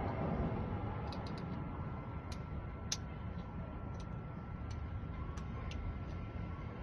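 Light, scattered clicks and ticks of small lock parts (pins and cylinder pieces) being handled and swapped while a lock cylinder is rekeyed, over a steady background hum.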